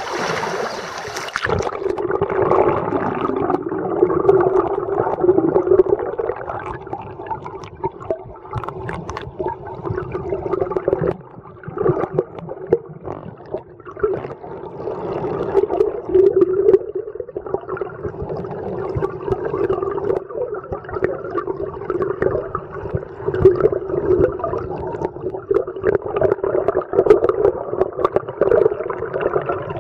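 River water gurgling and churning, heard through a camera held underwater, so it sounds muffled and dull. In the first second or so the sound is brighter, as the camera goes under the surface.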